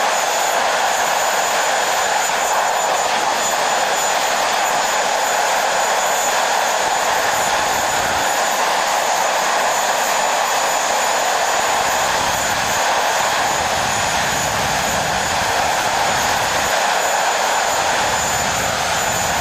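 The Rolls-Royce Avon turbojet of a BAC Lightning F.6 running steadily on the ground, with only one of the jet's two engines lit and no afterburner: a continuous loud roar with a steady high whine over it. A deeper rumble swells in and out in the second half.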